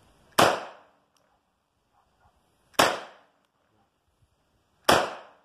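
Three pistol shots, one at a time about two seconds apart, each a sharp crack that trails off in a short echo.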